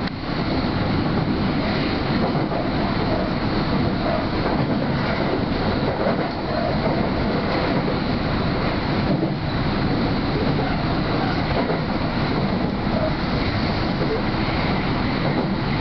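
Hanshin Main Line electric train running along the track, heard from inside the front car behind the cab: a steady rumble of wheels on rail and running gear.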